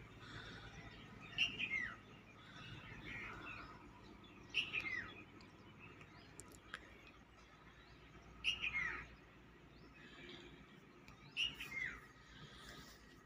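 A bird calling four times, each a short falling whistle, about three to four seconds apart, with fainter chirps between.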